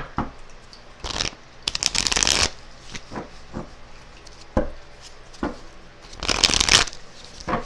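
A deck of tarot cards being shuffled: two bursts of rapid card shuffling, one about a second or two in and one near the end, with scattered light taps and clicks of cards between.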